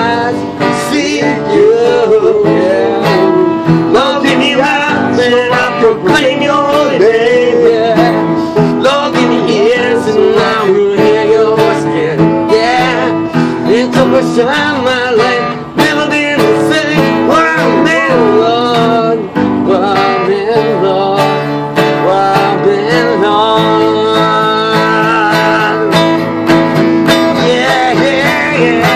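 Guitar playing a gospel song, with a voice singing the wavering melody over the chords.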